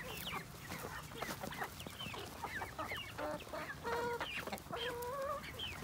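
A flock of domestic chickens clucking: many short, overlapping calls, with a longer drawn-out call about four seconds in.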